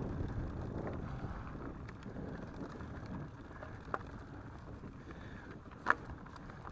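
Mountain bike rolling over a dirt forest trail: steady rumble of knobby tyres on the ground mixed with wind on the microphone, with two sharp clicks, one about four seconds in and one near the end.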